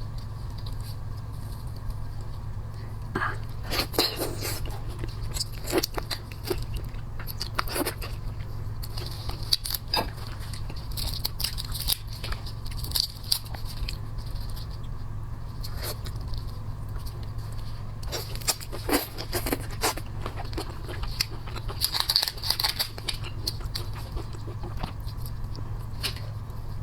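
Close-miked eating sounds: seafood shell being cracked and torn in irregular clusters of sharp crunches, with chewing in between, over a steady low hum.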